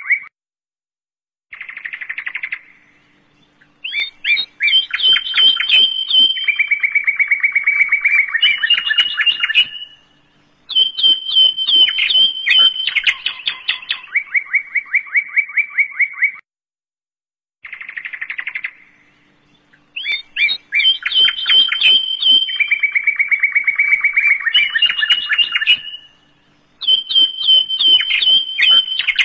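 Songbirds singing in fast trills of rapidly repeated chirping notes, broken by short pauses. The same passage plays about 16 seconds apart, a looped birdsong track.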